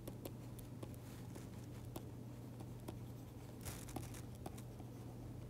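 Faint tapping and scratching of a pen stylus writing on a tablet screen, with a brief louder scratch a little before four seconds in, over a steady low hum.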